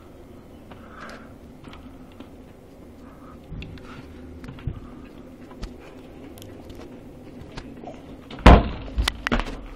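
Light steps and creaks climbing wooden stairs. About eight and a half seconds in, a wooden door is shoved open with a loud bang, followed by a few smaller knocks.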